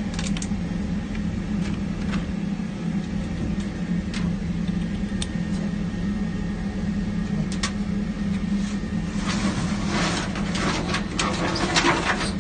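A vehicle engine idling with a steady low hum. From about nine seconds in there is a stretch of scraping and scuffling as a dog moves along the metal truck bed.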